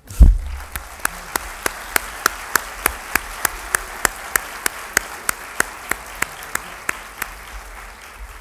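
Audience applauding, with one person's claps close to the microphone standing out in an even rhythm of about three a second. A low thump comes just as the applause begins, and the clapping fades near the end.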